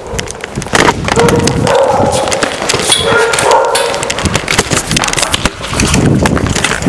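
Dogs barking, over rapid thumping footsteps and camera jostling as someone runs.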